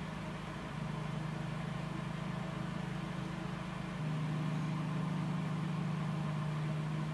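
Steady low background hum with no other events; about four seconds in it shifts slightly higher and gets a little louder.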